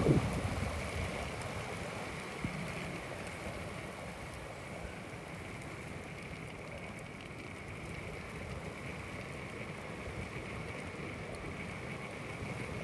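Small wheels rolling steadily on an asphalt path: an even rolling hiss with a faint steady high hum, plus some wind on the microphone.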